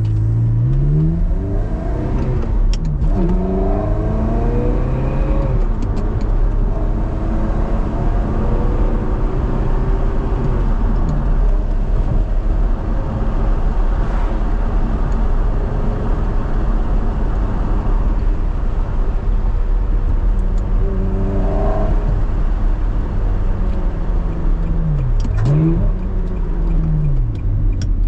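Ferrari 360 Modena's 3.6-litre V8 through a Fabspeed exhaust, driven through the gears: the engine note climbs, drops at each gear change and climbs again. A few sharp clicks from the gated six-speed manual shifter come at the shifts, a few seconds in and near the end.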